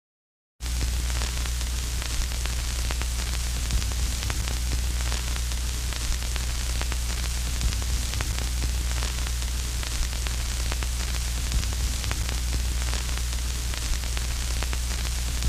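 Crackly old-film soundtrack noise: a steady hiss over a low hum, with scattered faint crackles and pops. It starts abruptly about half a second in.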